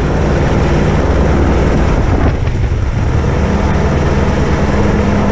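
Helicopter flying past with a loud, steady rotor beat; a steady hum joins about three and a half seconds in.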